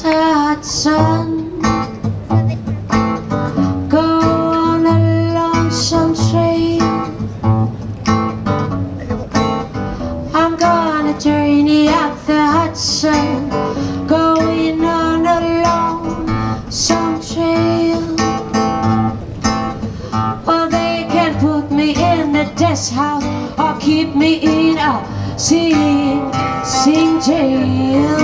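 A live band playing through the stage's speakers: guitar and bass under a held, wavering vocal melody.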